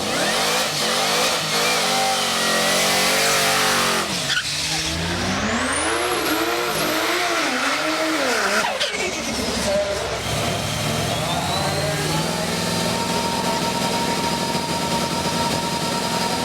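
Drag-race cars launching heads-up and accelerating hard down the strip, engine revs climbing and dropping back several times through the gear changes, then holding a steadier high note in the second half.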